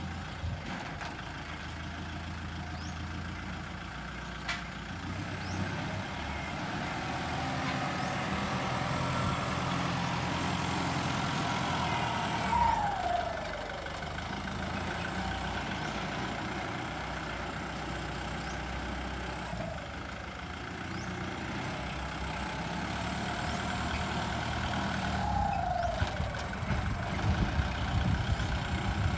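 Kubota turbo-diesel tractor engine running steadily under working load. A falling whine comes about halfway through and again near the end. The engine grows louder and rougher in the last few seconds.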